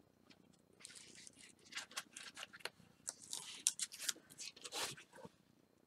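Protective liner being peeled off double-sided tape stuck to cardstock: faint, irregular crackling rips and rasps for about four seconds, starting about a second in.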